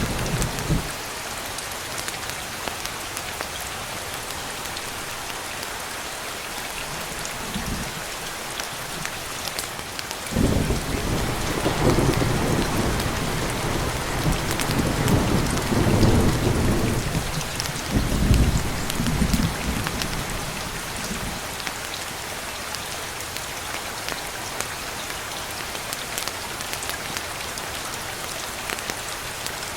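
Steady rain falling on a surface, with rolling thunder. A rumble dies away in the first second, and a longer roll starts about a third of the way in and swells several times over about ten seconds before fading.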